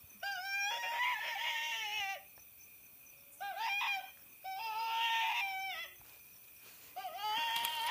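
Wounded-rabbit distress call from an electronic predator caller: a high, wavering, crying squeal repeated four times, each cry nearly identical in shape, with short pauses between.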